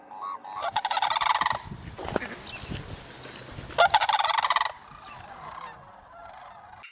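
Crane calling: two loud, rattling calls about three seconds apart, each lasting about a second, with fainter calls between them.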